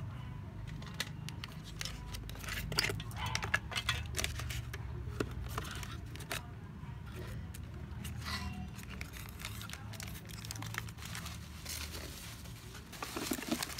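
A plastic bag crinkling and rustling as it is handled, with many irregular sharp crackles over a steady low hum.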